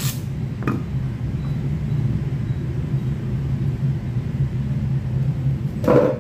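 A steady low background rumble, with handling knocks as a plastic security camera is put down on a wooden table: a sharp knock at the start and a smaller one just under a second in. A louder brief thump comes near the end.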